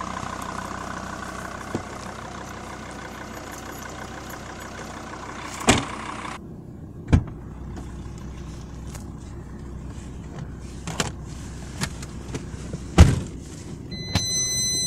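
Jeep Grand Cherokee with its engine idling steadily, while a few sharp knocks and thumps sound as the driver's door is handled, the loudest about thirteen seconds in. Near the end a steady high electronic tone starts up and holds.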